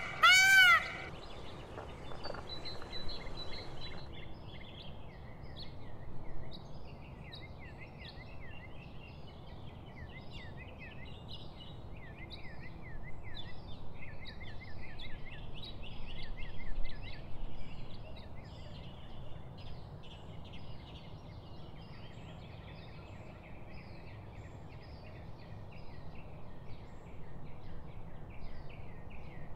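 A peafowl's loud, arching call ends about a second in. After it, small birds chirp busily and continuously over steady low background noise.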